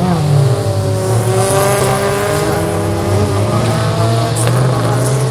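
Several folkrace cars racing on a gravel track, their engines running hard together, with a few engine notes rising and falling against each other as the cars drive through a bend.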